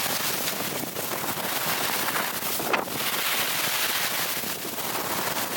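Skis sliding over packed snow with wind buffeting the microphone, a steady rushing hiss, with one brief sharper sound about halfway through.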